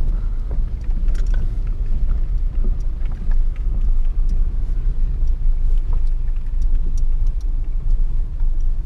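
A Hyundai car driving along, with a steady low rumble of tyres and body and scattered small clicks and knocks.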